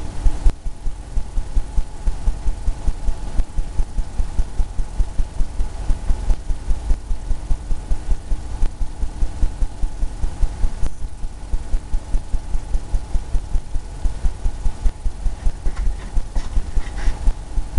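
Paintbrush dabbing and tapping paint onto a canvas on an easel, making dull low thumps in a steady rhythm of about four a second.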